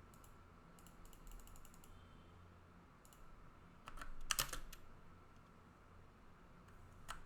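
Computer keyboard keys and mouse buttons clicking: a quick run of keystrokes about a second in, a louder cluster of clicks around the middle and one more near the end, over a faint steady hum.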